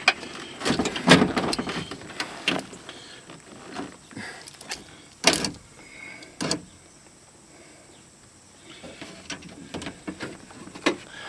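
Scattered clicks, knocks and clatter of metal parts and tools being handled inside a truck door while a window regulator and motor are fitted, with a cluster about a second in and two louder single knocks later.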